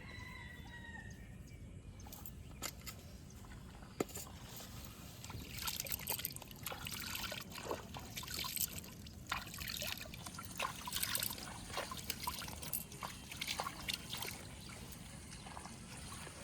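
Shallow muddy water sloshing and splashing, with a sharp click about four seconds in, then a run of short irregular splashes for most of the rest.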